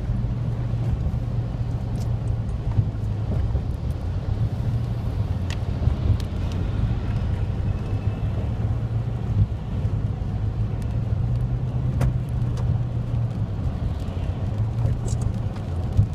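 Car driving on a rain-wet highway, heard from inside the cabin: a steady low drone of engine and tyre noise, with a few faint clicks.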